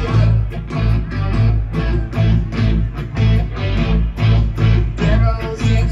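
Live rock band playing: electric guitars strumming over bass guitar and drums with a steady beat, heard from the audience in a concert hall.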